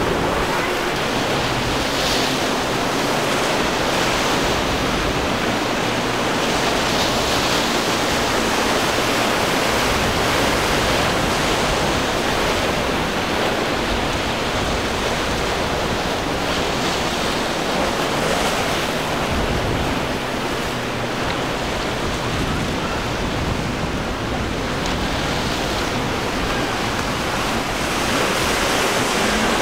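Waves breaking and surf rushing, a steady wash of noise, with wind buffeting the microphone.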